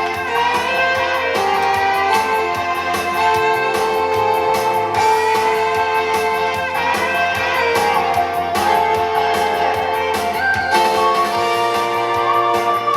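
Instrumental break of a pop-rock song with no singing: a lead melody of held notes on a shoulder keyboard (keytar), over a steady drum beat.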